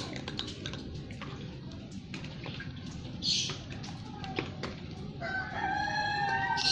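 A rooster crows in the background: one long call starting about five seconds in, the loudest sound here. Before it there are scattered small clicks of a cat crunching dry kibble over a steady background hiss.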